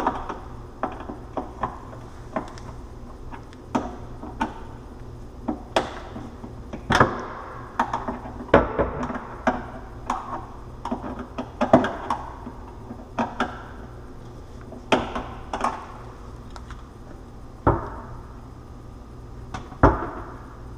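Wooden kitchen cabinet door being worked on its European hinges: irregular clicks and knocks of wood and metal, with a few louder thuds around the middle and near the end as the door is pushed against the cabinet. The self-closing hinge does not want to pull the door shut.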